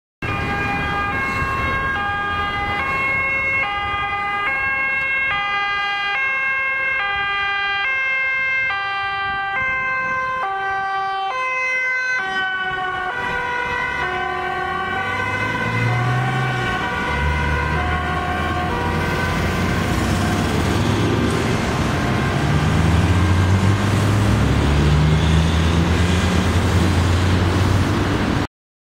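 Ambulance two-tone siren alternating high and low about twice a second. Its pitch drops about twelve seconds in as it passes, then it fades as the ambulance drives away, under a low traffic rumble that grows louder near the end.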